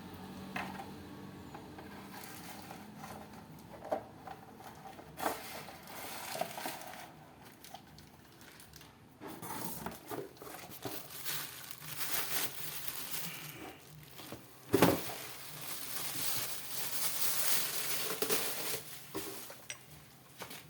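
Plastic packaging crinkling and rustling while a chainsaw and its parts are unpacked by hand, with scattered light knocks and one loud knock about three-quarters of the way through.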